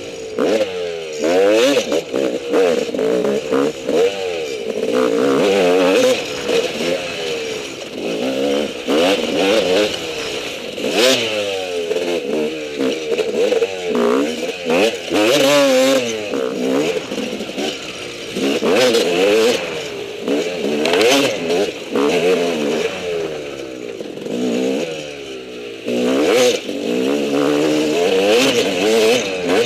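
Dirt bike engine revving up and dropping back again and again as the throttle is worked, with knocks and clatter from the bike jolting over the rough trail.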